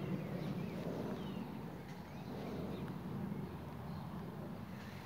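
Outdoor ambience: a steady low rumble of wind and movement on a walking camera's microphone, with faint birds chirping now and then.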